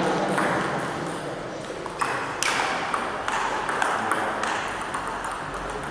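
Sharp, irregular clicks of a table tennis ball striking paddles and the table, several in a few seconds, over faint background voices.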